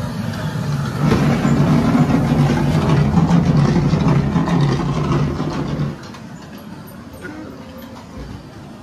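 Ghost train ride car rumbling along its track inside the dark ride, a loud low rumble that starts about a second in and drops off abruptly about six seconds in.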